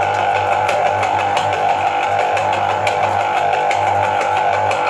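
Press-activated electric citrus juicer running as an orange half is pushed down onto its spinning reamer cone: a steady motor hum with a fast clicking rattle over it, a little noisy.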